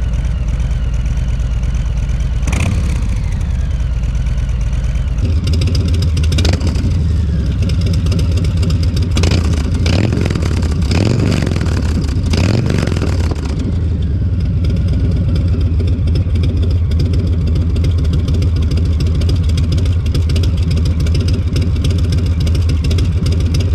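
Harley-Davidson Low Rider S V-twin idling through a TBR Turnout 2-into-1 exhaust. It gets a quick throttle blip a few seconds in and a run of several revs near the middle, then settles back to a steady idle.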